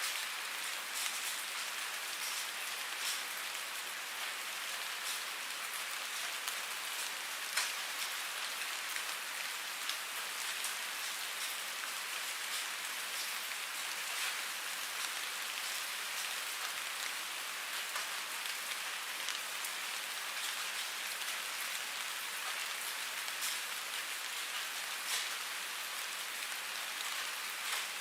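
Steady rain falling on a surface: an even hiss with scattered individual drops ticking now and then.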